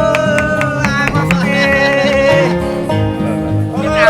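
Background music of plucked strings picked at an even pace, with a long held melody note at the start and another rising in at the end.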